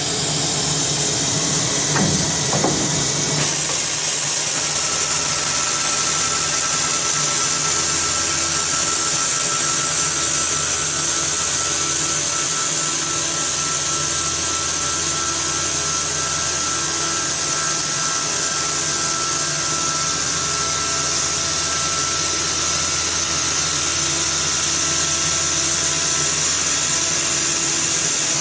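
Fully automatic CNC circular cold saw machine running while cutting metal: a steady mechanical hum with a high hiss, a knock about two seconds in, and a thin whine that sets in about five seconds in and stops near the end.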